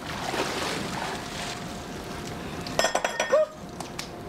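Glass clinking: a quick cluster of bright, ringing chinks about three seconds in, over a low, steady background hubbub.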